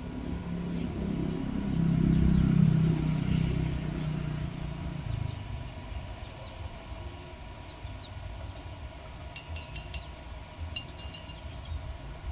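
A low rumble, like a passing vehicle, swells to its loudest about two to three seconds in and fades out by about five seconds. Faint high chirps sound above it, and two short runs of rapid sharp clicks come near the end.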